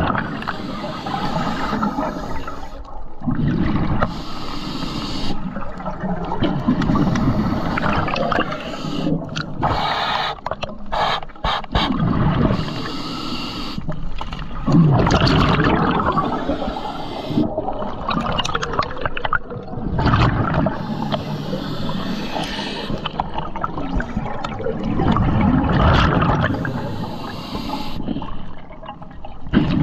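Scuba diver breathing through a regulator underwater: exhaled bubbles rush past in surges about every five to six seconds, with hissing breaths and quieter gaps between.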